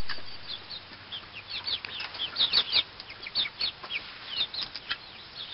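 Chickens in a backyard pen making rapid, short, high-pitched chirps, each sweeping downward, several a second.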